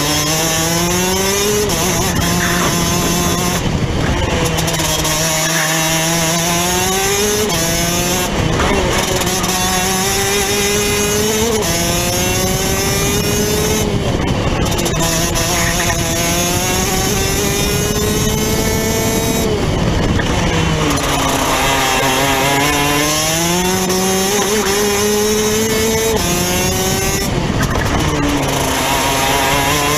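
Rotax DD2 kart's 125 cc two-stroke single-cylinder engine at racing speed, heard onboard. Its note climbs steadily along the straights and drops sharply several times, about every few seconds, before climbing again.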